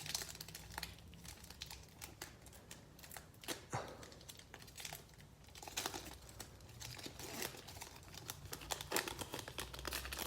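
Foil trading-card pack wrapper crinkling and tearing as it is opened, with irregular sharp rustles throughout.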